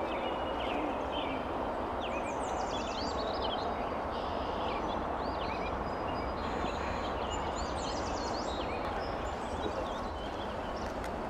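Outdoor ambience: small birds chirping again and again over a steady background rush.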